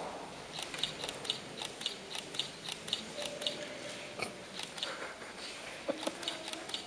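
Footsteps of hard shoes on a stone floor: a quick run of light clicks, then a few scattered ones.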